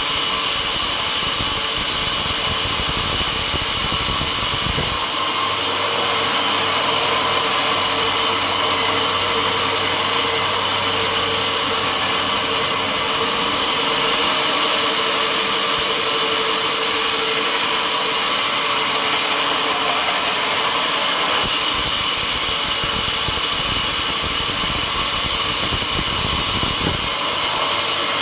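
Sawmill machinery running steadily with a constant dense, hissing saw-and-motor noise. A deep rumble underneath drops out about five seconds in, leaving a low hum, comes back about three quarters of the way through, and fades again just before the end.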